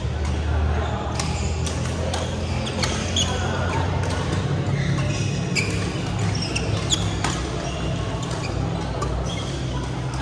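Badminton rally: several sharp racket strikes on a shuttlecock at irregular intervals, with short squeaks of shoes on the court mat, echoing in a large hall.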